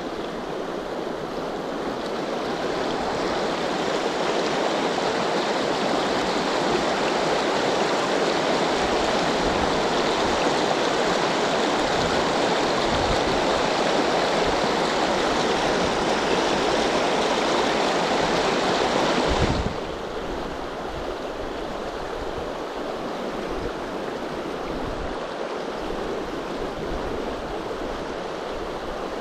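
Steady rush of shallow river rapids. The level drops suddenly about two-thirds of the way through, then the rushing carries on more quietly.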